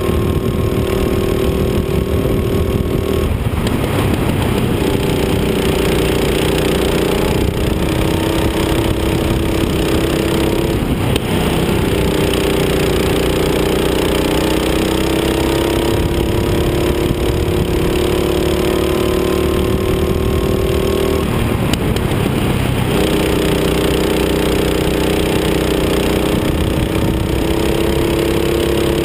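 Rental kart's engine running hard on a racing lap, its pitch climbing slowly along the straights. It drops off briefly as the throttle is lifted for corners: about three seconds in, around eleven seconds, and from about twenty-one to twenty-three seconds.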